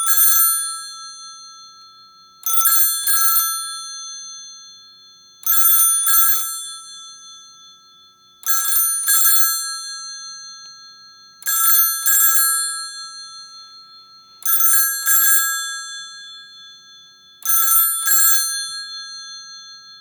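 Countdown timer alarm going off at 0:00. It rings in pairs of short rings about every three seconds, each pair dying away before the next.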